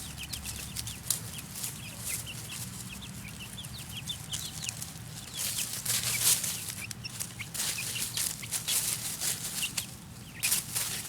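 Five-week-old chicks peeping, a stream of short falling peeps, while they scratch through dry leaves, with bursts of leaf rustling about halfway through and near the end.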